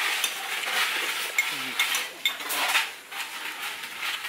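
A utensil stirring and scraping food in a hot frying pan, with sizzling and metal clinks; it quietens about three seconds in.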